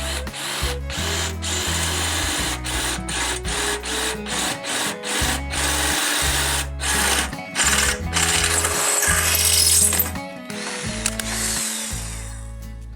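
A power tool running and stopping again and again over background music with a steady bass line; the tool noise is loudest about three quarters of the way through, then fades.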